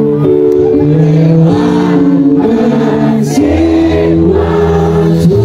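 Live pop band playing through a loud concert sound system: bass and keyboard chords changing about once a second under a sung melody, with many voices singing along.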